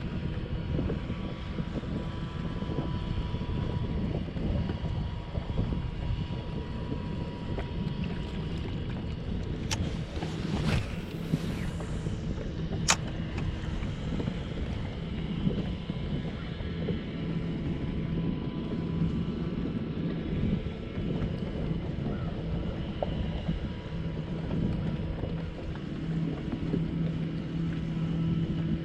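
Boat motor running steadily under wind noise on the microphone, with a sharp click about 13 seconds in.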